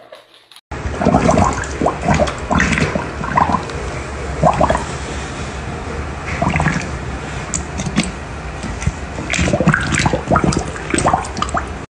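Dog drinking from a stainless steel bowl: loud, messy, irregular lapping and splashing of water, starting about a second in.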